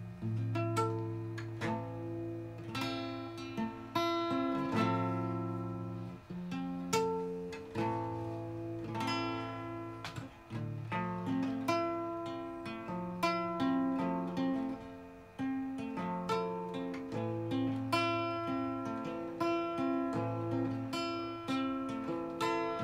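Solo acoustic guitar playing an instrumental passage: picked chords and arpeggios over ringing bass notes, a new chord struck about once a second.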